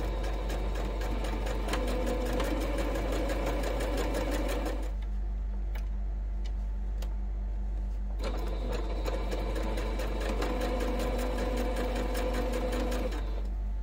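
Domestic electric sewing machine stitching a seam through quilting cotton, running steadily for about five seconds, pausing for about three seconds, then stitching again for about five seconds and stopping just before the end.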